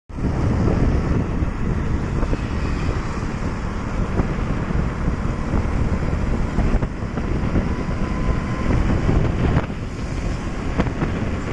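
Wind buffeting the microphone on a moving motorcycle: a dense, steady low rumble with the motorcycle's engine and tyre noise underneath.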